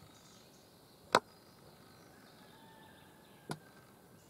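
Two sharp clicks about two and a half seconds apart, the first much louder than the second, over a faint outdoor background.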